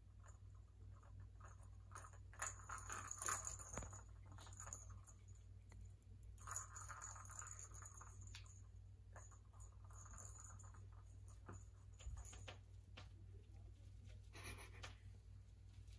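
Cat pawing at a plastic ball-track toy, the ball rattling and rolling around the track in a few short spells, with light clicks between them. The loudest spell comes about three seconds in.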